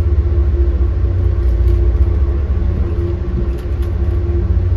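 Amtrak Acela high-speed electric trainset moving past along a station platform: a loud, steady low rumble with a constant mid-pitched hum.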